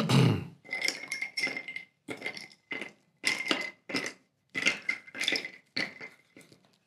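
Ice rattling in a cocktail shaker being shaken, about two or three strokes a second, each with a ringing clink; the shaking stops just before the end.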